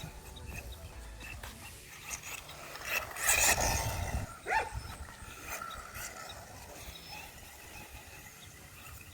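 Small electric RC truck's motor and gears whirring as it drives across grass, with a louder stretch about three seconds in.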